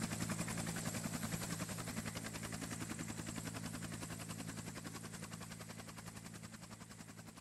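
A steady, rapidly pulsing machine sound with a low hum, several beats a second, slowly fading away.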